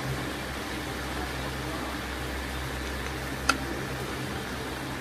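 Steady background hum and hiss, with one sharp click about three and a half seconds in.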